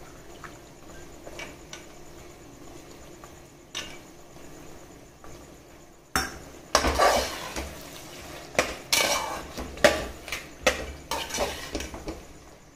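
A steel slotted spoon stirring green peas and vegetables in an aluminium pressure cooker, scraping and clinking against the metal pot. A few light taps come first, then a busy run of scrapes and knocks from about halfway in.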